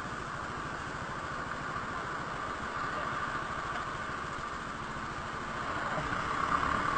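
Motorcycle engine running steadily at low revs, getting a little louder near the end.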